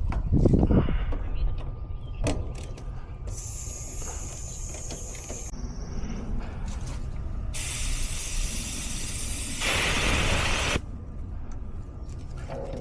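Refrigerant hissing as an air conditioner's service valves are opened to release the unit's charge into a freshly evacuated line set: two bursts of hiss, the first about two seconds long and high-pitched, the second about three seconds and louder, with a few clicks and knocks of tools around them.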